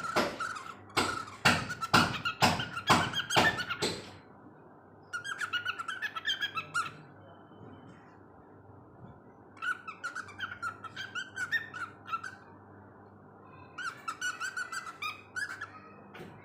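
Cockatiel vocalizing. For about the first four seconds it gives a run of loud, sharp repeated calls, about two a second, then three quieter bursts of rapid chattering warble with pauses in between.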